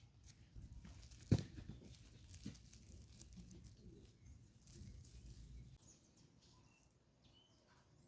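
Faint rustling and handling noises with one sharp click about a second in, dying away to quiet with a few faint bird chirps near the end.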